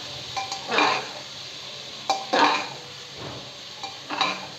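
A metal spoon scrapes and clinks against the inside of a pressure cooker in about three strokes while liver and onions are stir-fried. The oil sizzles steadily underneath.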